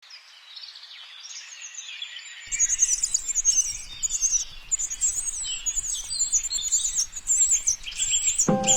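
Birds chirping: a dense run of short, high, rapid chirps that fades in and grows louder about two and a half seconds in. Background music starts right at the end.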